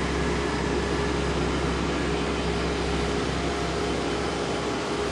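Steady drone of a Carver motor yacht under way: the engines' constant low hum with water and wind rush, heard from inside the boat's enclosed bridge.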